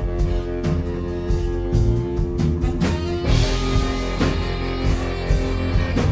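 Live rock band playing: electric guitars over bass and drums.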